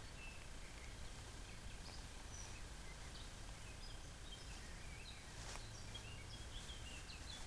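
Faint outdoor ambience: a steady low background rumble with scattered short, high bird chirps.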